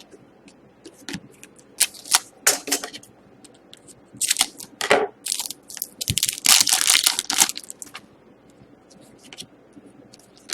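Hockey trading cards being handled and slid against one another, a run of short scraping and flicking sounds, busiest from about two to eight seconds in.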